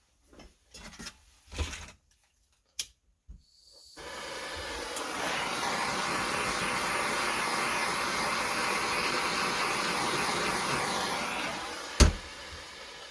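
A few light handling clicks, then a heat gun blowing steadily for about eight seconds, shrinking heat-shrink tubing over a ratchet's universal swivel joint. It stops with a sharp click near the end, and the fan noise fades away.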